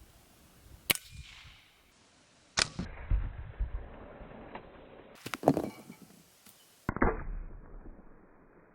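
Pellet gun shots: four sharp cracks spread out over the stretch, each trailing off quickly.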